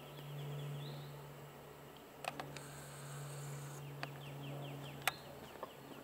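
A steady low insect buzz, with a bird's fast series of short notes twice, each series ending on a higher note. A few sharp taps come in between.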